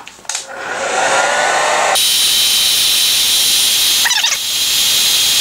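Hair dryer switched on: its motor whines up to speed, then from about two seconds in it runs as a loud, steady blowing hiss with a high whine over it, dipping briefly about four seconds in.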